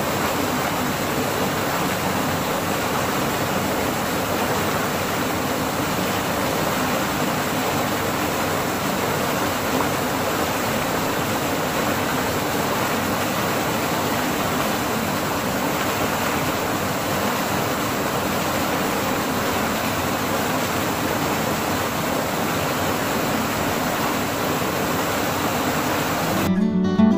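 Small creek waterfall spilling between boulders into a rocky pool: a steady rush of falling water. Near the end, strummed acoustic guitar music comes in.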